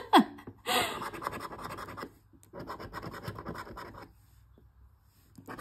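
A scratch-off lottery ticket's latex coating being scraped off in quick rasping strokes. The scratching comes in two runs of about a second and a half, pauses, and starts again near the end.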